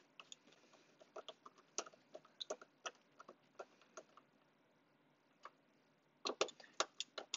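Small Phillips screwdriver driving screws into the plastic arm and gripper housing of an Omnibot 5402 toy robot: faint, irregular clicks and ticks as the driver turns, coming thicker near the end.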